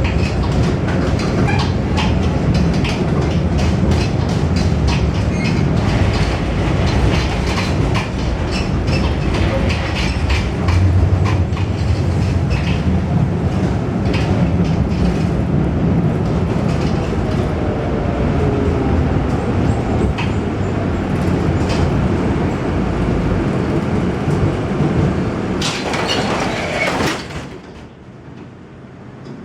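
An old tramcar running along rough track, heard from inside the car: a heavy rumble with many rapid clicks and knocks from the rails. A faint rising tone comes through around the middle. A loud rushing burst comes near the end, then the noise falls to a much quieter rumble.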